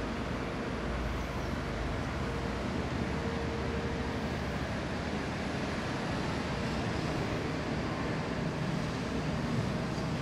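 Caterpillar 340F long-reach excavator's diesel engine and hydraulics running steadily at work, with a steady mid-pitched whine that fades out about four seconds in.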